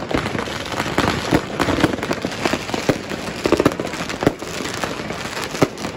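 Fireworks and firecrackers going off in quick, irregular succession: many sharp bangs and crackles overlapping, with a few louder reports standing out.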